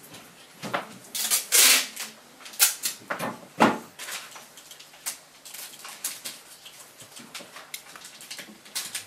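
Hands handling and scraping a patterned box on an easel: irregular clicks, scrapes and knocks, with a loud hissing rustle about a second and a half in and a heavier knock a couple of seconds later.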